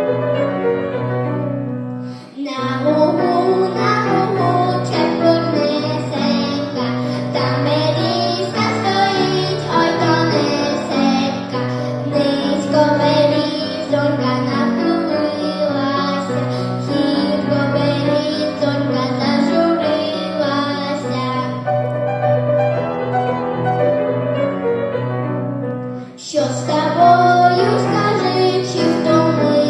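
A young girl singing a Ukrainian folk song over an instrumental accompaniment, with short breaks between phrases about two seconds in and again near the end.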